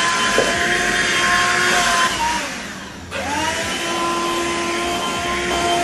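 Small handheld cordless vacuum running with a steady motor whine. It is switched off about two seconds in and winds down, then is switched back on about three seconds in, its whine rising as the motor spins up.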